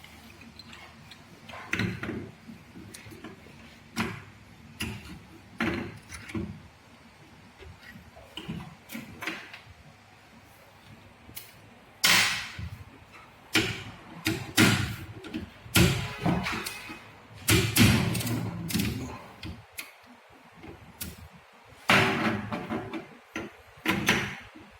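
Tools and small parts of a Bosch common rail diesel injector clicking and knocking against each other and the bench as it is taken apart. Irregular sharp knocks, busier and louder in the second half.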